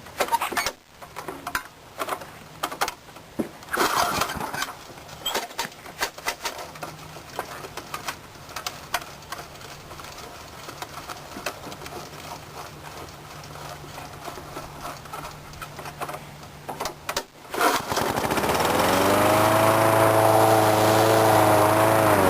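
Scattered clicks and knocks, then about 17 seconds in a Master Cut 21-inch push mower's Briggs & Stratton engine starts on the choke, its pitch rising as it comes up to speed before settling into a steady run.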